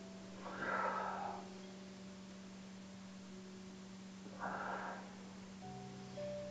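A woman breathing out audibly twice as she works through back-extension lifts, about a second in and again about four and a half seconds in, each breath lasting under a second.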